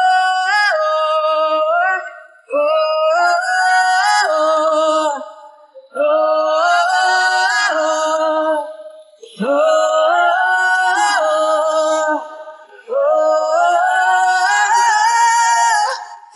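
Isolated male lead vocal from a rock band's acoustic live set, with no instruments: about five long, high sung phrases with held, wavering notes and short breaths between them. A second, lower voice sings along beneath.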